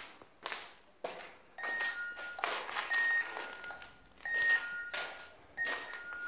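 Motion-detector alarm sounding a falling two-note chime, repeated four times about every 1.3 s. Footsteps crunch on the debris-strewn floor.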